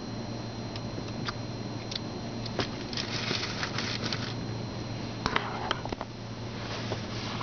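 Water and soap spattering and dripping onto the car's windscreen and body, heard from inside the car in an automatic car wash: irregular taps and two short spells of hissing spray over a steady low hum.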